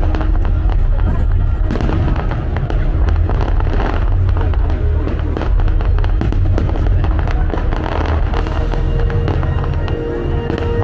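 Aerial fireworks going off in quick succession, many rapid pops and bangs over a steady low rumble, with the show's music playing at the same time.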